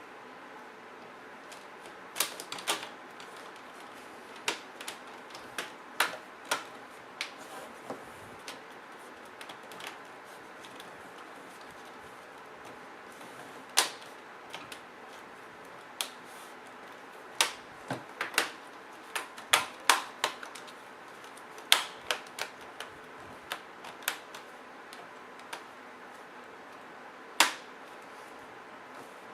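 Plastic snap clips of an HP Pavilion G7 laptop's lid cover clicking into place as the cover is pressed back on: irregular sharp clicks, some single and some in quick clusters.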